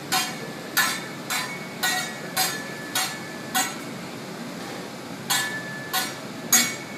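Teppanyaki chef's metal utensils clanking against the steel griddle in a steady rhythm, about two ringing strikes a second. The strikes stop for over a second midway, then three more follow.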